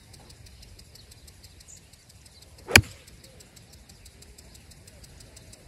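Golf iron striking a golf ball on a full swing: one sharp impact about three seconds in.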